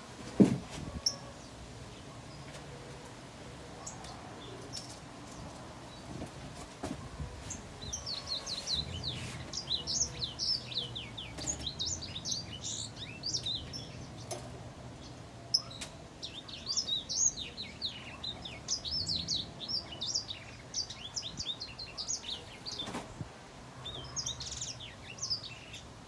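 Small yellow caged songbird singing: runs of quick, high, falling chirps in long bursts starting about a third of the way in and again past the middle, with a short burst near the end. A sharp knock sounds just at the start.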